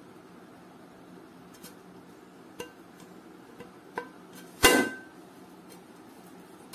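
Aluminium non-stick pan being handled: two light metallic taps, then about four and a half seconds in one louder clank that rings briefly.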